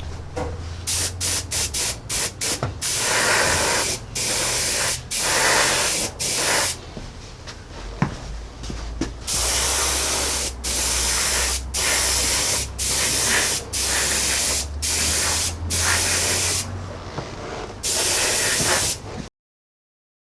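Paint sprayer hissing in repeated bursts as DuraCoat clear coat is sprayed: a run of short quick bursts at first, then bursts of about a second each with brief breaks between, over a low steady hum.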